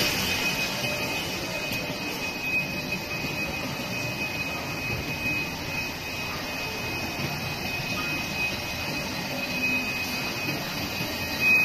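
Air bubble film (bubble wrap) making machine running: a steady mechanical hum of motors and rollers with a thin, constant high whine above it.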